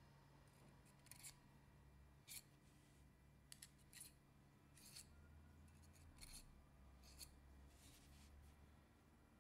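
Faint, scattered short metallic clicks and scrapes of small metal parts being handled: a screwdriver tip working the coils of a rebuildable dripping atomizer, then the atomizer and a metal box mod being picked up and fitted together.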